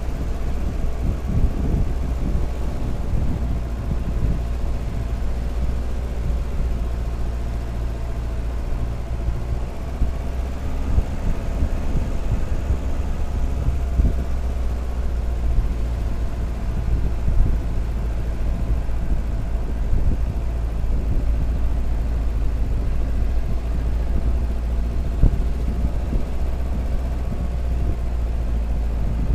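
Jeep Cherokee XJ driving slowly along a rough dirt track: a steady engine drone over a deep rumble, with scattered knocks as the vehicle jolts over ruts.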